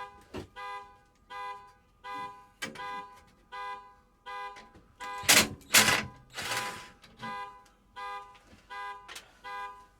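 Car alarm sounding: the car's horn honks in short repeated blasts about every half second to second. Two loud bangs break in about halfway through.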